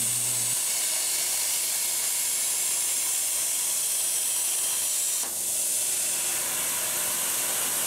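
CNC plasma cutter torch cutting a slot through flat steel bar: a steady hiss of the arc and air jet, with a brief dip about five seconds in.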